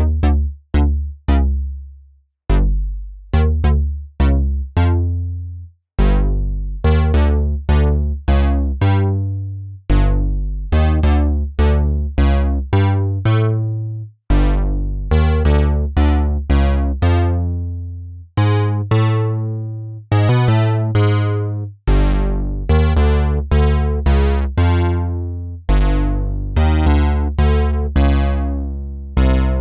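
u-he Hive software synthesizer playing a bass-heavy preset: a rhythmic run of short notes, each starting sharply and dying away quickly, with deep bass and bright overtones. The phrases are broken by a few short pauses.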